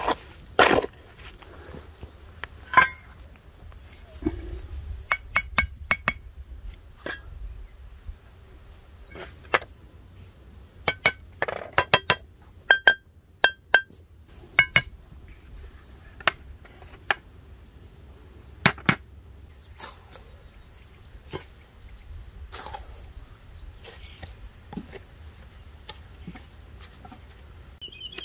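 Hammer tapping perforated clay bricks down into mortar to level them: sharp knocks, some single and some in quick runs, a few with a short ringing clink. Occasional trowel scrapes on the mortar between taps.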